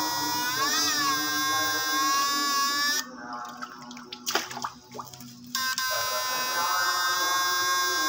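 Homemade transistor fish shocker whining at a steady high pitch while its probes are in the water. The pitch wavers briefly about a second in. The whine stops for a couple of seconds midway, with a few clicks, then resumes.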